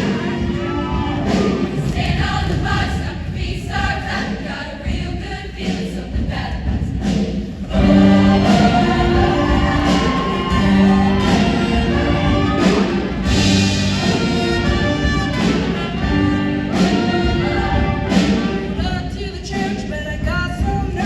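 Show choir singing with a full instrumental backing, the music swelling louder about eight seconds in.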